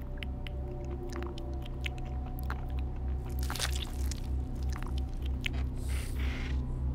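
A low pulsing drone, throbbing about four to five times a second over a steady hum, with scattered small clicks and crackles and a brief hiss about six seconds in.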